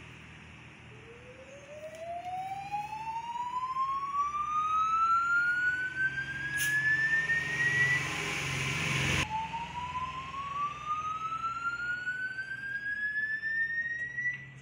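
Siren sound, a single tone rising slowly in pitch for about seven seconds. About nine seconds in it cuts off abruptly, then starts again partway up and rises again.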